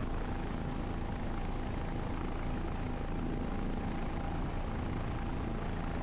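Helicopter engine and rotor running steadily in a hover, heard from inside the cabin.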